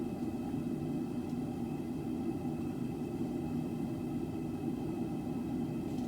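Propane forge burner running steadily: a constant, even rumble with no change.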